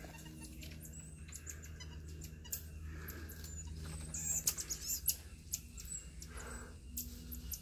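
Marmosets giving short, high-pitched chirps, several in quick succession about halfway through, over a faint steady low hum.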